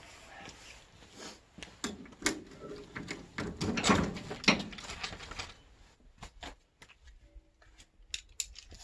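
A run of sharp clicks and knocks, like hardware or a door being handled, loudest and busiest about four seconds in, then sparser.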